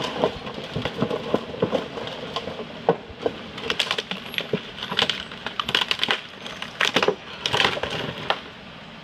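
Car lying on its side being dragged by a tow truck's winch cable: irregular crunching, cracking and clinking as the body scrapes along the ground. The noise gets busier partway through and stops shortly before the end.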